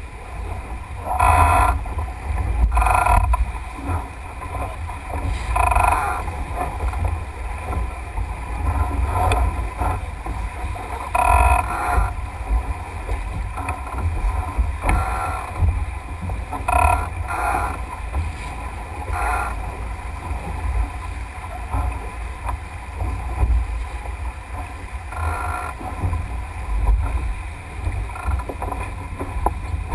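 Water rushing and splashing along the hull of a Melges 24 sailboat sailing fast, with a surge of spray every few seconds. Wind buffets the on-deck camera's microphone, giving a constant low rumble.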